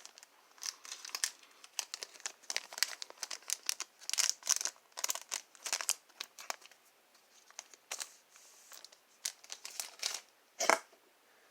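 A trading-card booster pack's wrapper being torn open and crinkled by hand: a fast, irregular run of sharp crackles, with one louder crackle near the end.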